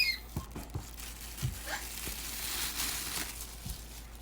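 Soft crinkling and rustling with a few light knocks as an auger drill bit is picked up and handled, the rustle swelling briefly about two to three seconds in.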